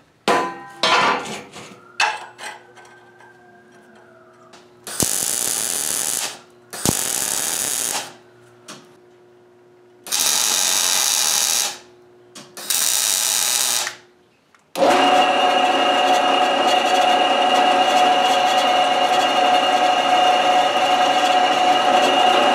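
A few knocks of steel stock, then four short bursts of harsh metalworking noise, each a second or so long. About fifteen seconds in, a drill press starts and runs steadily, its bit cutting through square steel tubing.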